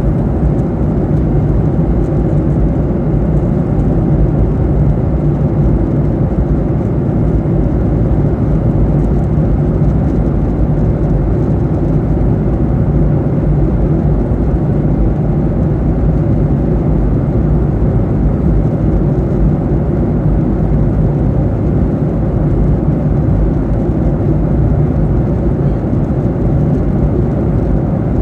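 Steady in-flight cabin noise of a Boeing 737-800: the CFM56 turbofan engines and airflow make an even low rumble that does not change.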